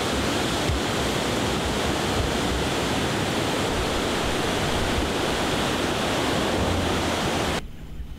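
Steady rushing of the flood-swollen Winooski River, an even roar of fast-moving water. It cuts off abruptly near the end, leaving a much quieter background.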